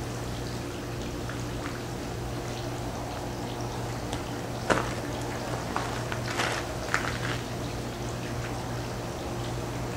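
A steady low hum with a hiss over it. A sharp click comes about halfway through, and a short run of faint clicks and rustles follows a second or two later.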